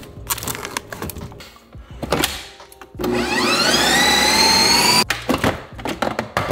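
A few knocks and clunks, then a Ninja Creami ice-cream maker's motor spinning up with a steadily rising whine for about two seconds that cuts off suddenly, followed by more knocks.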